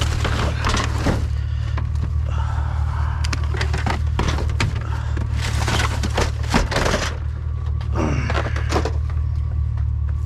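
Rummaging through junk in a dumpster: irregular scrapes, knocks and clatters of objects being shifted and pulled out, over a steady low hum.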